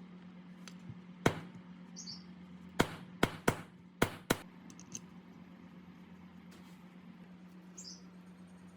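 Six sharp clicks or taps of hard objects in a quick, uneven run from about one to four and a half seconds in, over a steady low hum.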